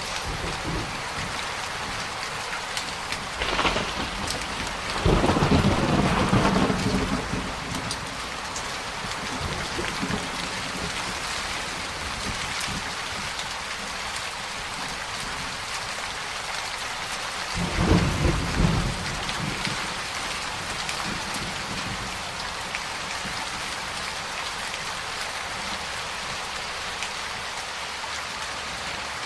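Steady heavy rain falling, with rolls of thunder: a short one about three and a half seconds in, a longer rumble soon after, and another past the middle.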